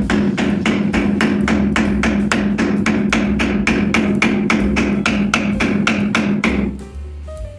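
Hammer striking a chisel held against a wooden door frame in rapid, even blows, about four to five a second, cutting into the wood. The blows stop about six and a half seconds in.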